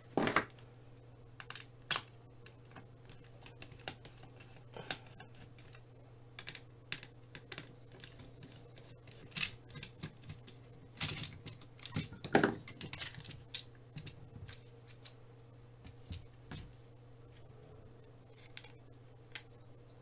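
Scattered small clicks and taps of plastic controller parts and a circuit board being handled and eased apart on the work mat, with a busier run of clicks about halfway through. A steady low hum runs underneath.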